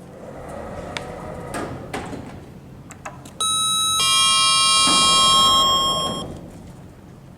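Lift mechanism clicking and moving, then a loud two-note electronic chime from the lift that holds for nearly three seconds before fading.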